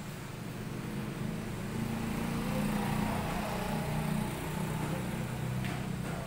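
A motor engine running with a steady low hum, growing louder toward the middle and easing off near the end.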